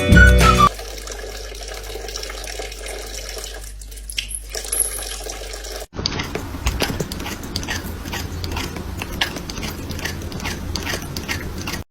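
Water running, as from a tap, in two separate stretches. The second stretch is dotted with many small clicks and splashes.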